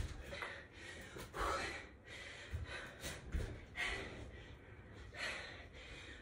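A woman breathing hard through a set of burpees, with short gasping breaths every second or so. Dull low thumps come as her hands and feet land on the exercise mat.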